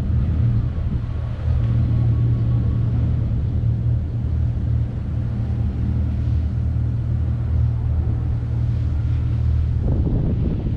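Steady low rumble and hum of waterfront ambience, with wind buffeting the microphone that picks up near the end.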